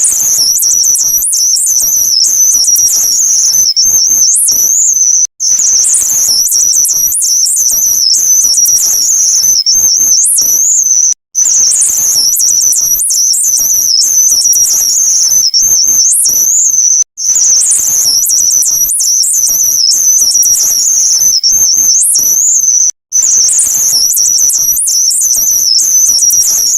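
Digitally warped "Beepup" beep sound effect: a loud, high-pitched warbling tone whose pitch wavers rapidly, with chirpy flicks above it. It plays in loops of about six seconds, broken by four brief silent gaps.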